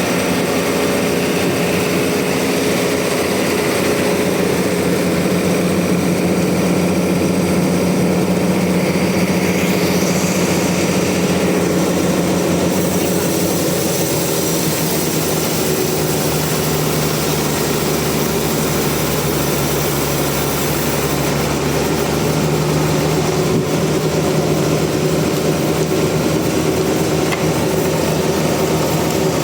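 Sawmill machinery running steadily, a loud continuous motor hum whose pitch drops slightly about halfway through.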